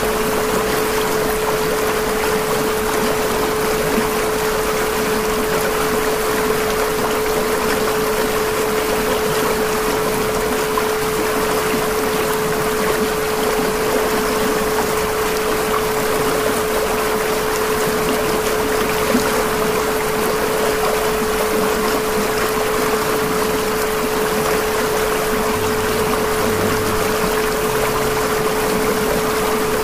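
A steady pure tone at about 432 Hz held without a break over an even bed of running-water noise. This is the backing of a subliminal affirmation track.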